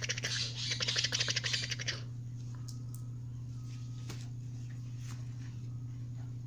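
Black lory giving a rapid raspy chatter while playing, which stops about two seconds in and leaves a few faint ticks over a steady low hum.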